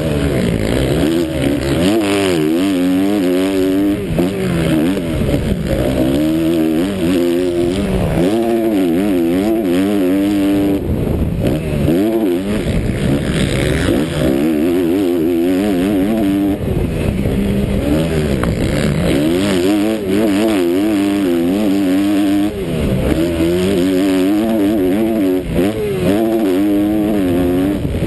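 Motocross dirt bike engine ridden hard and heard up close, the revs climbing and dropping back every second or two.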